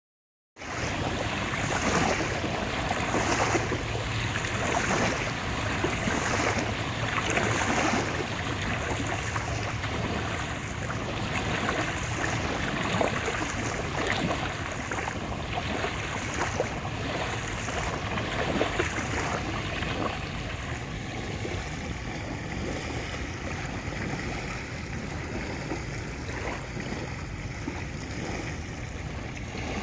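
Small, fast waves breaking and washing up on a sandy shore in a steady rhythm, a surge about every second and a half. The wash grows softer in the last third.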